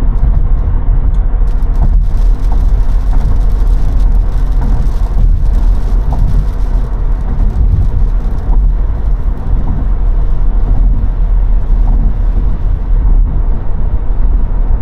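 Steady low rumble of tyre and road noise inside a Tesla Model 3's cabin at highway speed.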